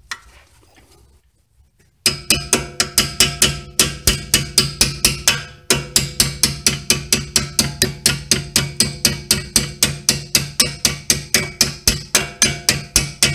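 Rapid metal-on-metal tapping, about four strikes a second, as the end of a ratchet is used as a hammer to drive the upper pad pin into a Mercedes S550 front brake caliper; each strike rings. The tapping starts about two seconds in and keeps an even rhythm.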